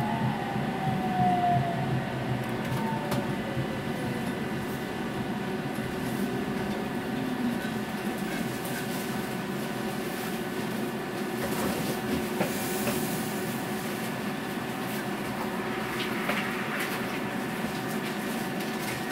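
Interior of an electric tram braking to a stop, its motor whine falling in pitch over the first few seconds, then the tram standing with a steady electrical hum.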